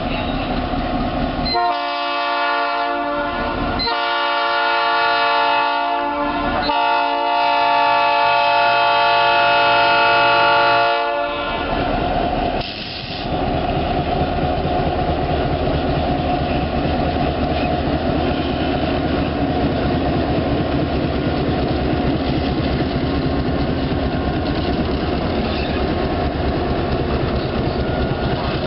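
EMD GP7 diesel locomotive sounding its air horn in three long blasts, the last and loudest lasting about four seconds. Then its 16-cylinder two-stroke diesel engine runs and its wheels roll over the rails as it passes close by.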